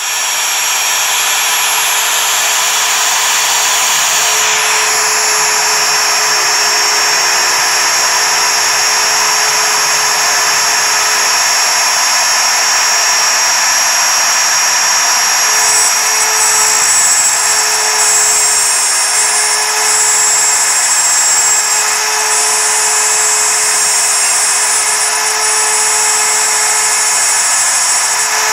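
MPCNC (Mostly Printed CNC) spindle running at full speed, its single-flute end mill cutting 6061 aluminium: a steady high whine with cutting noise. A lower tone comes and goes over it.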